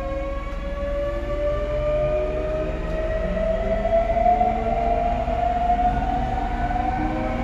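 Toei 6300 series train's GTO-VVVF inverter whining, a set of tones rising steadily in pitch as the motors pull the train up to speed, over the low rumble of the running car.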